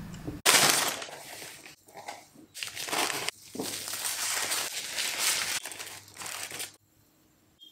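Paper fast-food wrapping crinkling and rustling as a McDonald's burger is unwrapped and fries are pulled from a paper fries bag. It comes in several loud bursts, the loudest at the start, and stops about seven seconds in.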